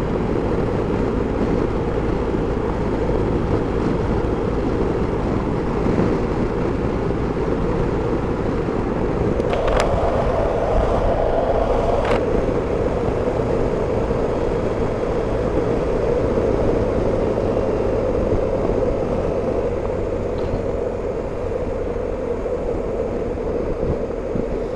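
BMW R 1250 GS Adventure boxer-twin motorcycle on the move: a steady drone of engine and wind noise, which briefly shifts about ten seconds in and settles again about two seconds later.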